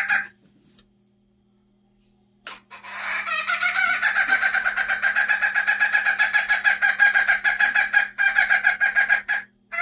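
Japanese bantam hen giving a long, rapid stuttering call of quickly repeated notes, about six seconds long, which starts a few seconds in after one short note and breaks briefly near the end.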